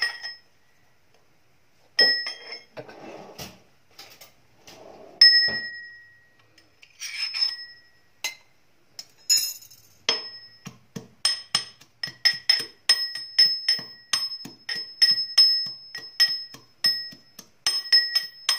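Steel spoon pounding and crushing garlic cloves in a small steel cup. A few separate ringing knocks with some crunching and scraping come first, then from the middle on a quick run of ringing strikes, about two a second.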